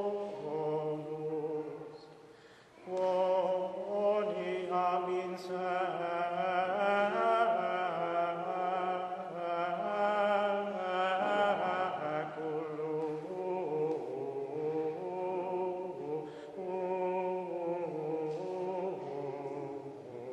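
A choir sings Latin Gregorian chant, with several voices holding long, slowly moving notes. The singing dips and nearly stops about two seconds in, then resumes.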